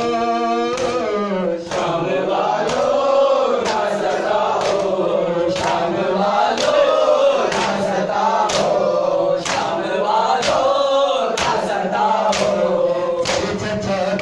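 A group of men chanting a noha (Shia lament) together, with a steady beat of sharp chest-beating strikes (matam) keeping time, a little more than once a second.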